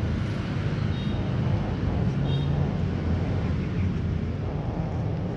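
Steady low rumble of outdoor background noise, with a couple of faint, brief high tones about one and two seconds in.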